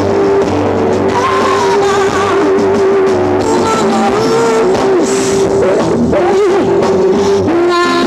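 Live blues-rock band playing: electric guitars, bass and drums, with a lead line of long held notes that bend and waver in pitch.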